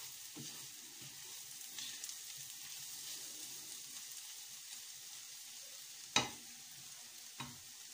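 Sliced champignon mushrooms sizzling steadily in butter in a frying pan as they are stirred with a silicone spatula. One sharp knock comes about six seconds in and a lighter one near the end, as the spatula strikes the pan.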